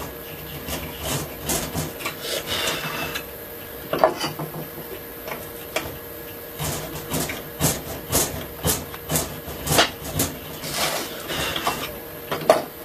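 A paring chisel scraping and cutting wood, paring the bottom of a notch flat to a scribed line: a run of scraping strokes, a sharp knock about four seconds in, then short cuts about two a second and more scraping near the end.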